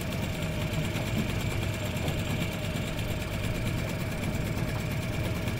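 Small boat's outboard motor running steadily, with a fast, even mechanical clatter.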